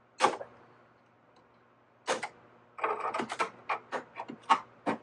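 A sharp plastic snap about a quarter second in, then a string of irregular clicks and rattles from about two seconds on: thick zip ties being cut with snips and pulled loose inside a 3D printer's frame.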